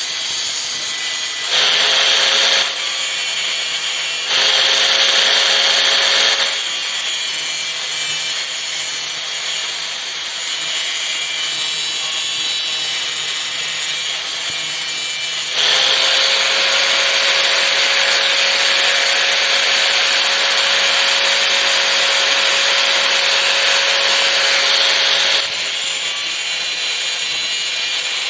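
A small power tool running in three bursts: about a second, then about two seconds, then nearly ten seconds. Each burst carries a steady whine over a harsh, scraping grinding noise, and a constant hiss continues between the bursts.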